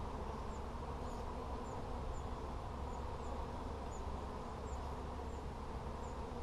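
Honey bees buzzing steadily around an open hive, a continuous hum. Faint, short high chirps repeat about twice a second over it.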